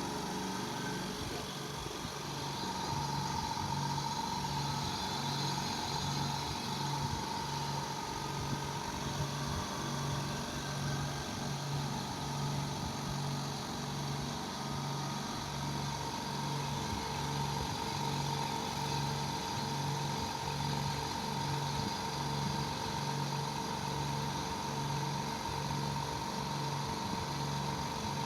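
A 2 HP oil-free piston air compressor running steadily, with a constant hum and an even, repeating pulse.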